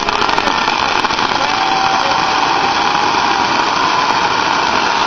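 Ground fountain firework spraying sparks: a loud, steady hissing rush, with a faint whistling tone that glides in pitch through the middle.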